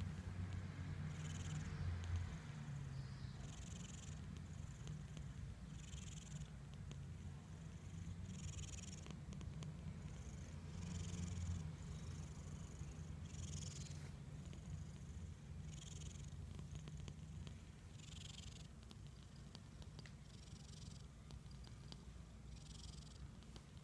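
A sleeping cat snoring softly: a steady low rumble, with a hissy breath about every two and a half seconds.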